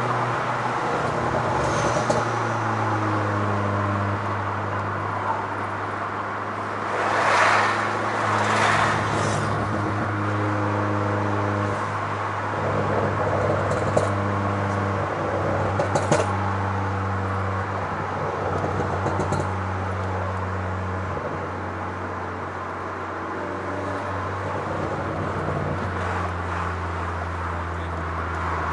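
Fiat Grande Punto 1.4 T-Jet turbocharged four-cylinder engine running steadily, its pitch stepping up and down a few times, with a few sharp exhaust pops from its pops-and-bangs map. A louder rushing noise swells about seven to nine seconds in.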